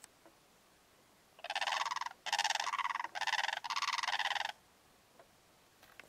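A pair of blue cranes calling in duet: four loud calls in quick succession, each under a second long.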